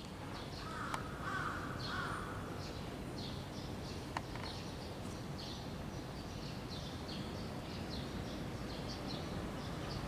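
Small birds chirping continuously in quick, high notes, with a couple of harsh, caw-like calls about a second in. Two sharp clicks, about a second and about four seconds in, stand out above the birdsong.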